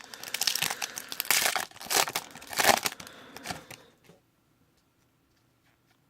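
A trading-card pack wrapper being torn open and crinkled by hand: dense crackling and tearing for about four seconds, then it stops.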